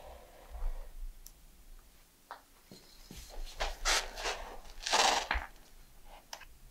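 Chalk line being snapped and handled on a concrete floor: a sharp click at the start, then a few scratchy scrapes and rustles, the loudest about five seconds in.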